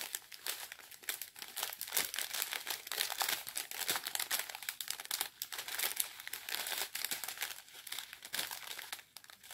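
Small clear plastic bags of round diamond-painting drills crinkling and crackling as they are handled and turned, an irregular run of many small crisp clicks.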